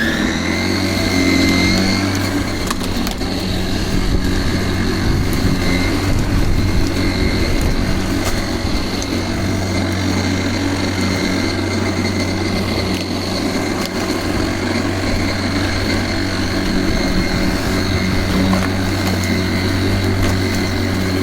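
Worx cordless battery lawnmower's electric motor and blade running on turbo: a whine that finishes spinning up to speed in the first second or two, then holds steady while the mower cuts grass.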